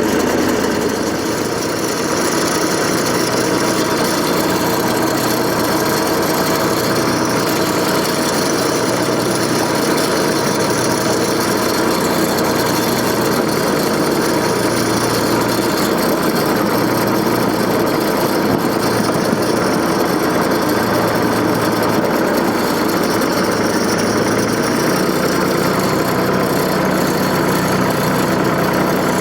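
John Deere 485A backhoe's engine running steadily, its low note shifting slightly now and then.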